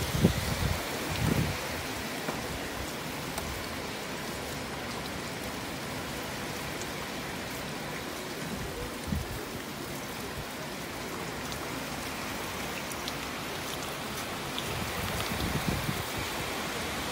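Heavy tropical-storm rain pouring steadily, a dense even hiss, with wind gusts buffeting the microphone a few times: near the start, once about halfway, and near the end.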